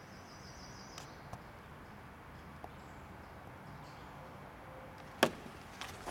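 Light handling clicks over a faint steady outdoor background, with one sharp, louder click about five seconds in and another just before the end.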